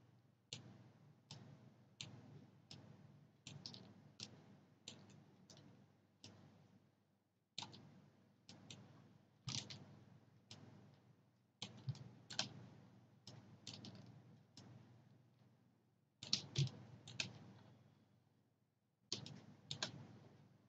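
Computer mouse clicking at a steady pace, about one click a second, with two short pauses; each click places an anchor point with Photoshop's pen tool.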